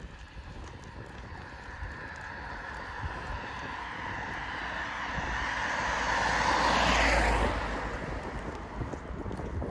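A vehicle passing by: its noise builds steadily over several seconds, is loudest about seven seconds in, then fades away.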